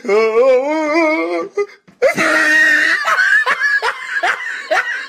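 High-pitched cartoon voice laughing: a long wavering note, then after a brief pause a burst and a run of short "ha" pulses, about three a second.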